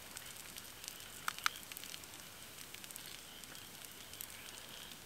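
Wood campfire crackling quietly, with scattered small pops and two sharper ones about a second and a half in.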